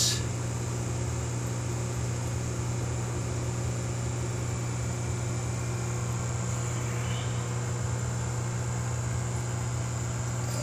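Steady mechanical hum with a light hiss from aquarium equipment running, filters and pumps, at an even level throughout.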